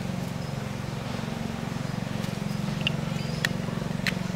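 A steady low mechanical hum with a fine, even pulse in it, and a few short, sharp high clicks in the second half.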